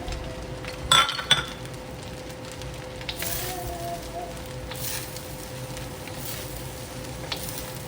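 Fried rice with freshly added spinach and green onion sizzling and being stirred in a hot wok, the flame already turned off. Two sharp clanks come about a second in, with fainter scrapes and knocks later.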